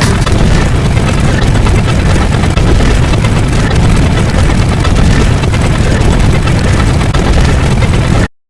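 A loud, dense wall of layered noise with a heavy rumbling low end and no clear rhythm or tone. It cuts out to silence for a moment just before the end.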